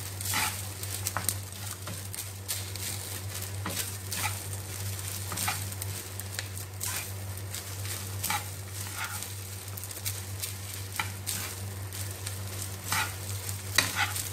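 Wooden spatula stirring and scraping egg-coated rice around a pan as it fries, the scrapes coming irregularly, one or two a second, over a light sizzle. A steady low hum runs underneath.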